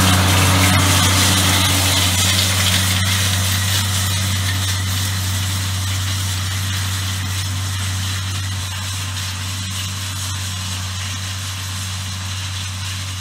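John Deere 4250 tractor's six-cylinder diesel engine running steadily with a low drone under load as it pulls a chain harrow past and away, fading slowly as it goes.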